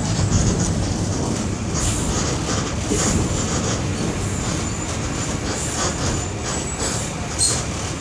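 Volkswagen 17.230 EOD bus on the move: a steady low engine and road rumble, with the body and fittings rattling and clicking every so often.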